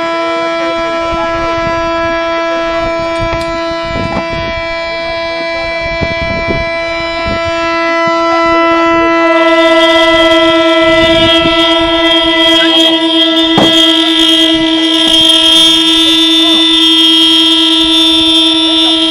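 A loud, steady horn-like tone, held at one unchanging pitch without a break, with a hiss joining it about nine seconds in.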